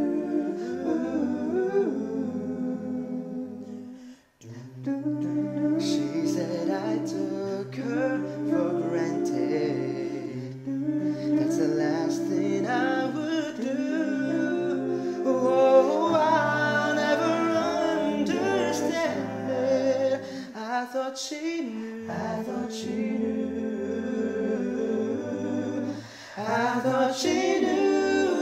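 A cappella singing by one man's voice multitracked into several parts: a low bass line, sustained harmony chords and a lead melody above them. The voices drop out briefly about four seconds in.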